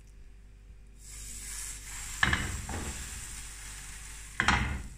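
Mutton kebab mince sizzling on a ridged grill pan, a steady hiss that sets in about a second in. Two louder pats come as the patty is pressed flat with the hand.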